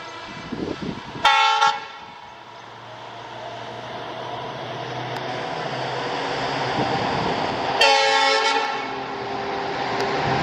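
WDP-4D diesel locomotive sounding its horn twice, a short blast about a second in and a longer one near the end, while its engine and wheel noise grows steadily louder as it approaches.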